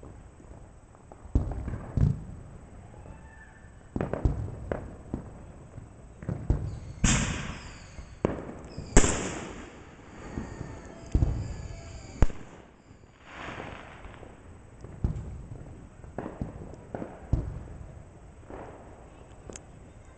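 Aerial fireworks going off: an irregular series of about fifteen sharp bangs, the two loudest about seven and nine seconds in, each followed by a high hiss that lingers for a few seconds.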